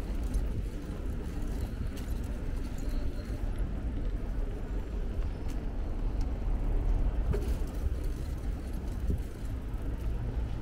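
Bicycle rolling over paving stones: a steady low rumble from the tyres with a few light knocks from the bike.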